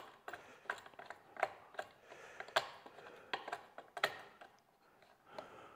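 Light, irregular metallic clicking and scraping as a steel eye bolt is screwed in by hand from below into a T-nut in a plywood table, the clicks coming about every half second and fading near the end.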